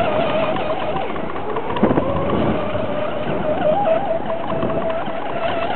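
Electric RC speedboat with a brass propeller running fast across open water: a steady, high-pitched motor whine that wavers a little in pitch as the boat turns.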